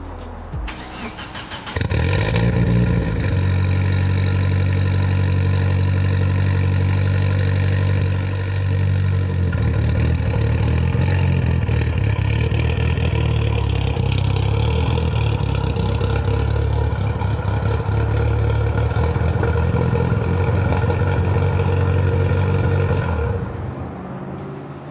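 Mitsubishi Lancer Evolution I GSR's turbocharged 2.0-litre 4G63 four-cylinder engine starting up about two seconds in and idling steadily, its sound dropping away shortly before the end.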